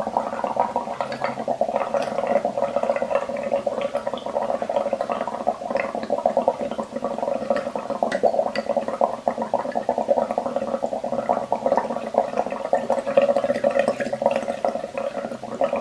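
Air blown through a metal straw into a glass of soapy water: steady bubbling and gurgling with fine crackles as foam builds up over the rim.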